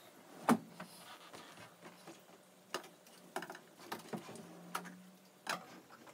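Scattered knocks and clicks as a person gets up from an armchair, hurries across the floor and works the front door's handle and latch to open it, with a single louder thump about half a second in.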